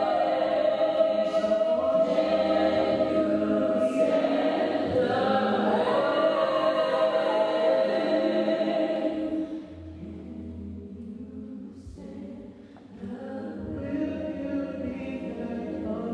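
Mixed-voice a cappella group singing without instruments: a full chord is held while a lead voice sings a sliding run over it. About ten seconds in the singing drops to a softer passage, then builds back up near the end.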